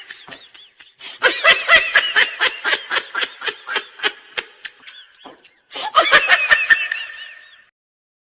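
High-pitched laughter in rapid, rhythmic pulses, coming in three bouts with short breaks between them and stopping abruptly near the end.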